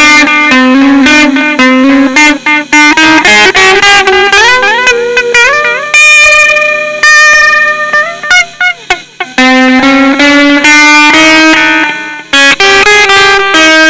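Electric guitar playing a loud instrumental riff: a repeated low note, rising slides a few seconds in, a held note around the middle, then a falling slide before the riff comes back.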